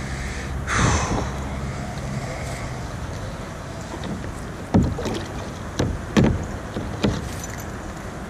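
Water splashing around a kayak as the rope of a magnet-fishing magnet, stuck on something on the river bottom, is tugged and hauled in by hand. There is one louder sound about a second in and several short sharp ones between about five and seven seconds in.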